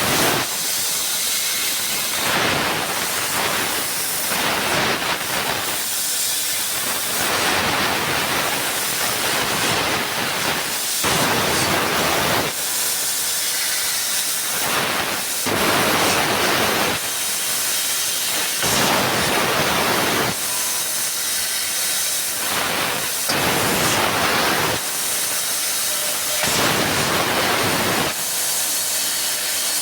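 Fiber laser cutting 1.5 mm mild steel pipe: a loud, steady hiss of assist gas from the cutting head, growing fuller and thinner again every second or two as cuts start and stop.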